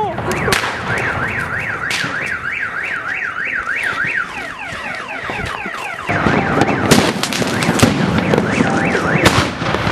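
A car alarm wailing, its pitch sweeping up and down about three times a second, then switching to falling tones, amid ground firecrackers going off. The firecracker bangs come thicker and louder from about six seconds in.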